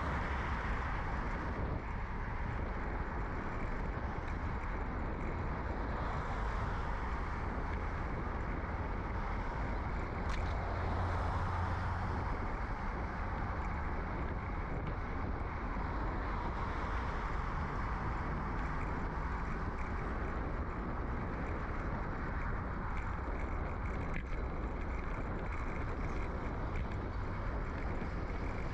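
Steady rolling road noise and muffled wind rush picked up by a bicycle-mounted microphone in a furry windshield while riding along a suburban street, with a louder swell about eleven seconds in.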